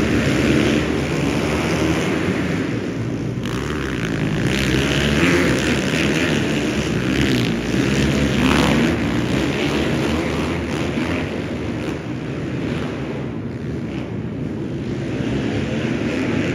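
Several pit bikes racing together, their small single-cylinder engines revving and shifting over one another, inside an indoor arena. The sound swells a little before halfway as bikes pass close through the turn.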